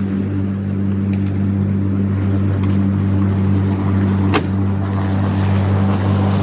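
Older Viking electric lawnmower running while mowing: a steady motor hum with a strong low drone and a heavy breathing sound. A single sharp click sounds about four seconds in.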